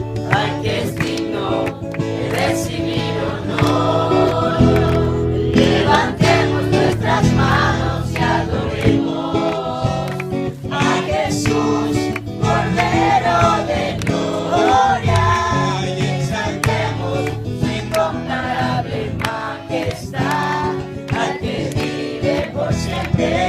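A group singing a Spanish-language Christian worship song with instrumental accompaniment, steady throughout.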